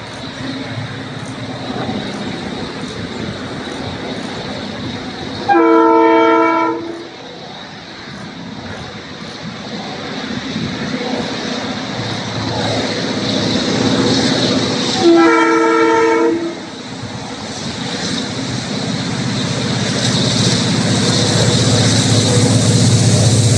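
Class 664 diesel-electric locomotive (EMD-built) approaching, its engine drone growing steadily louder. It sounds its multi-tone horn twice, about six and fifteen seconds in, each blast lasting about a second and a half.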